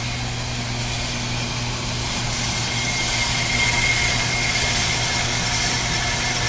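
On-car brake lathe running, its motor turning the car's hub and brake rotor with a steady hum. A thin high whine comes in about two seconds in, as the rotor silencer is clamped onto the spinning disc.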